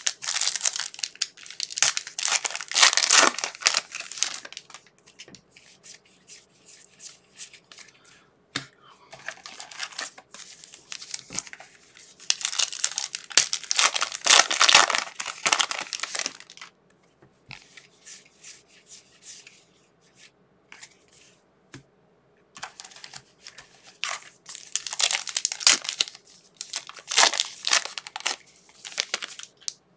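Trading-card pack wrappers being torn open and crinkled by hand, in three bouts of loud rustling with short quieter pauses and a few sharp clicks between.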